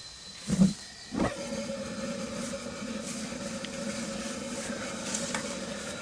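Propane burner of a homemade waste-oil furnace lighting: a short thump about a second in, then the propane flame running with a steady hiss and a low hum.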